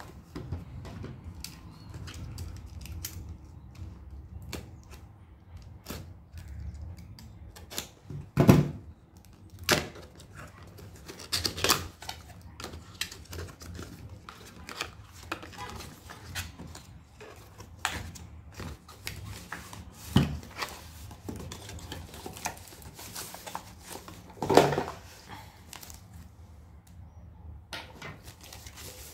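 Cardboard box packaging being handled and opened by hand: a string of small taps, scrapes and rustles of cardboard flaps and inserts, with a few louder knocks and rattles now and then.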